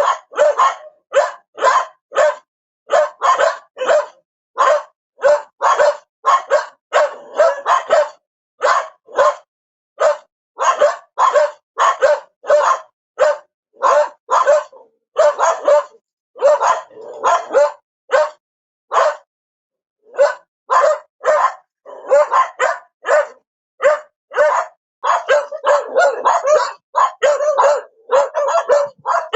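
A dog barking over and over in short, quick barks, about two to three a second, pausing briefly about two-thirds of the way through. Near the end the barks come thicker and run into one another.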